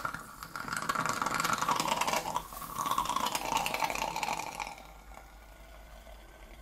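Wooden splint burning fiercely in a test tube of liquid oxygen, a rough crackling hiss mixed with the liquid oxygen boiling. It dies down about five seconds in as the burning fades.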